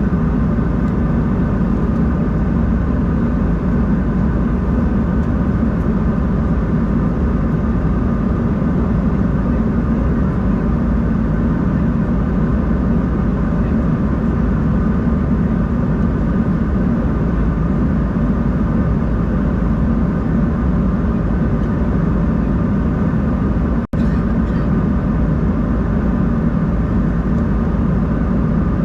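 Steady cabin noise of an Embraer 190-E2 airliner in flight: the drone of its Pratt & Whitney PW1900G geared turbofans and the rush of air, with a few faint steady whines above. The sound cuts out for an instant near the end.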